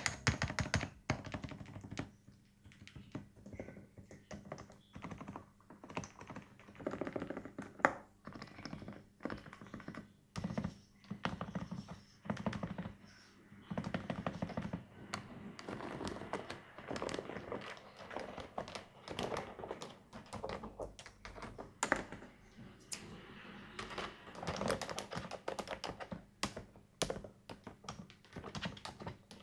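Epomaker TH108 mechanical keyboard with silent switches being typed on: quiet, muted keystrokes in quick, irregular runs.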